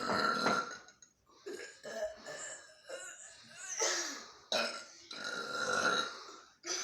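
A person burping over and over: about five burps in a row, each half a second to a second long.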